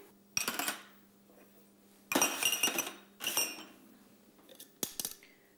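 Ceramic ramekins clinking against one another and the tray as they are set out, in three short ringing clatters with a small click near the end.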